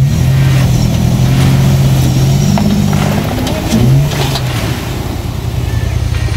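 An off-road truck's engine pulling under load while rock crawling, holding a steady pitch, then revving up briefly about four seconds in before easing off.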